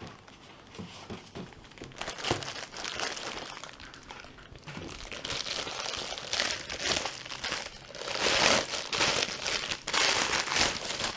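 Packaging wrap crinkling and rustling as a boxed LED studio light is unwrapped and handled, in irregular bursts that grow louder around the middle and near the end.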